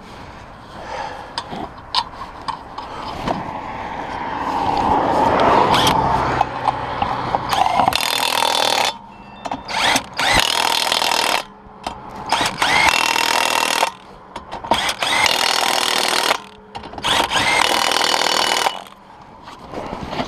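Ingersoll Rand W7150 cordless impact wrench running on wheel lug nuts: one longer run from about four seconds in, then five short bursts of a second or two each with brief pauses between.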